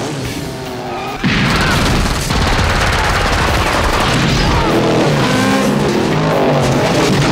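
Action-film gunfire: a sudden burst of rapid shots and booms starts about a second in and keeps going, mixed with music.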